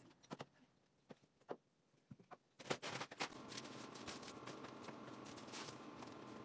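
A few light scattered taps and knocks, then, from just under three seconds in, a louder crinkling, papery rustle of kraft-faced fiberglass insulation batts being handled and pushed into the stud wall, over a faint steady hum.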